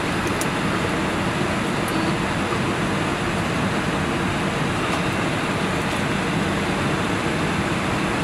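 Steady hiss and hum inside an Airbus A320 cockpit parked at the gate before engine start: air-conditioning airflow and equipment fans.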